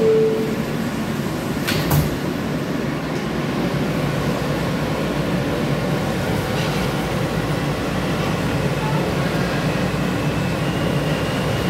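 Interior of an R160 subway car on the F line: steady rumble and hum of the car running. A two-note falling door chime ends right at the start, and there is a single knock about two seconds in.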